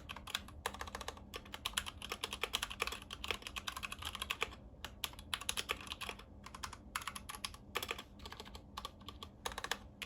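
Typing sound test on a Clix x Matrix 60% mechanical keyboard with Gateron Optical Yellow linear switches: fast runs of key presses with brief pauses between bursts.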